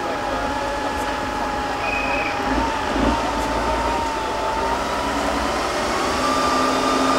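8x8 Tatra trial truck's diesel engine working under load as it climbs a muddy slope. A thin high whine runs through it and rises slowly in pitch over the last few seconds.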